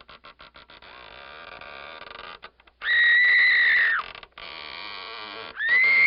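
Sound effect of crackling, stuttering noise followed by two loud, high-pitched screams, each held on one pitch. The first lasts about a second and drops away at its end; the second starts near the end.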